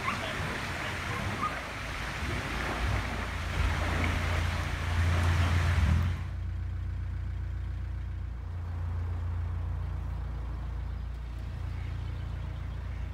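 Narrowboat diesel engine running with a steady low hum. For the first half a broad rushing noise lies over it, cutting off suddenly about six seconds in and leaving the engine hum alone.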